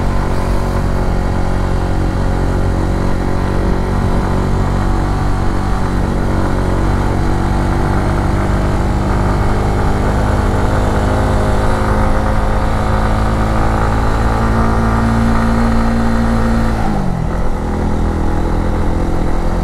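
Honda CBR150R's single-cylinder four-stroke engine pulling uphill under steady load, its pitch creeping slowly up. About seventeen seconds in the pitch drops sharply, then rises again.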